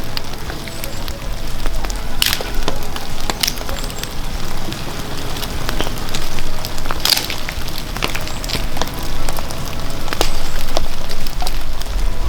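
Wood fire crackling, with irregular sharp pops and snaps, a few of them louder.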